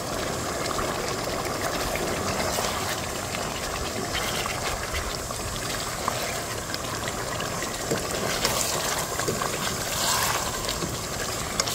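Chicken curry simmering and bubbling in a pot, a steady watery hiss with faint scattered ticks, as it is stirred with a silicone spoon.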